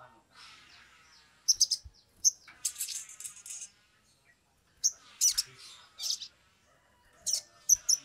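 Olive-backed sunbird singing: bursts of high, rapid chirps and trills in several short phrases, with brief pauses between them.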